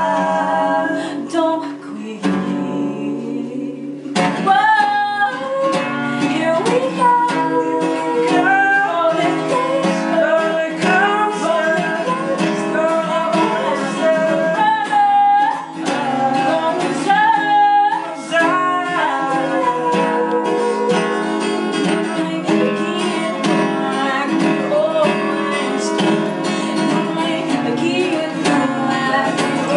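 Acoustic guitar strummed steadily, with a man and a woman singing a pop ballad over it.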